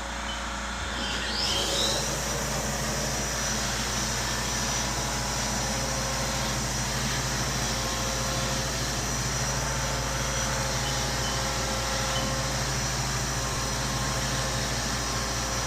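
CNC mill spindle spinning up about a second and a half in, then running steadily at about 8,000 RPM with a high whine as the second operation runs on a pure iron part.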